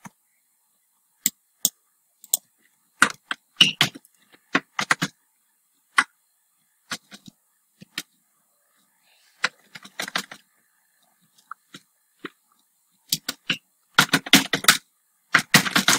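Computer keyboard being typed on: irregular key clicks, single taps and short bursts with pauses between them, the busiest burst near the end.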